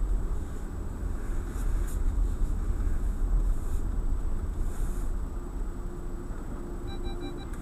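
Low road and engine rumble inside a moving car's cabin that eases off as the car slows, followed near the end by a short run of four quick electronic beeps.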